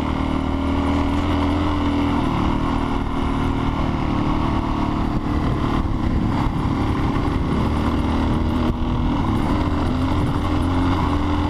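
Motorcycle engine running steadily under way, over wind and tyre noise. The engine note drops back about two seconds in and picks up again near the end.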